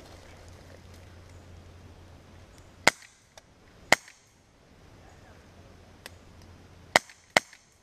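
Airsoft gunfire: four sharp single cracks, two about a second apart near the middle and two in quick succession near the end, with a couple of fainter clicks between.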